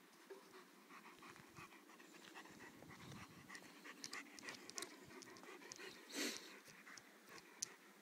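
German Shepherd dog panting close by in quick, soft rhythmic breaths, with one louder noise about six seconds in.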